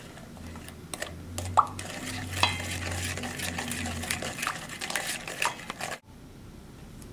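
A wooden spoon stirring melted butter and sugar in a stainless steel mixing bowl, scraping and clicking against the metal sides. The stirring stops abruptly about six seconds in.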